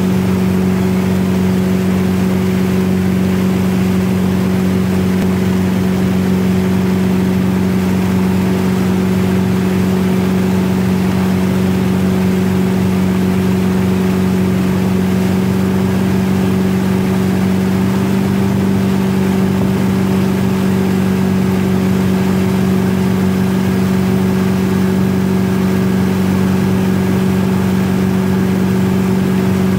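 Wake boat's inboard engine running at a steady towing speed, a constant drone that holds one pitch throughout, over the rushing water of the churning wake.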